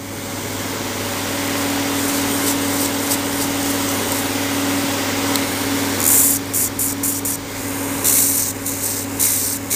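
Electric nail drill (e-file) with a sanding band grinding gel off a fingernail, over the steady hum of a nail dust-collector fan. From about six seconds in, a run of sharp scratchy rasps as the bit bites on the nail.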